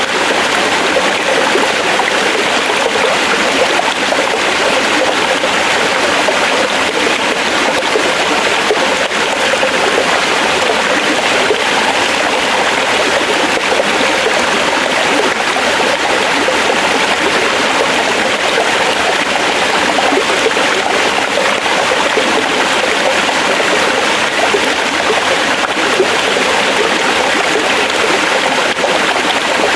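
Forest stream flowing over rocks: a steady, unbroken rush and babble of water.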